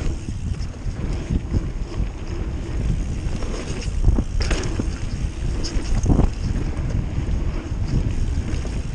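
Wind rushing over the microphone of a camera riding a mountain bike downhill, with irregular rattles and knocks from the bike going over bumps in the trail.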